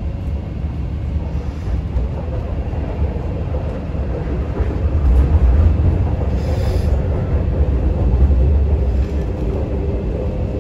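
MTR Kwun Tong Line C-train running at speed, heard from inside the passenger car: a steady low rumble of wheels on the track with a faint steady whine over it. The rumble grows louder about halfway through.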